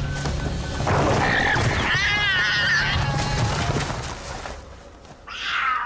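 Guanaco crying out in shrill, wavering calls, a long cry about a second and a half in and a shorter one near the end: the distress cries of prey caught by a puma. Background music with a low steady drone runs underneath.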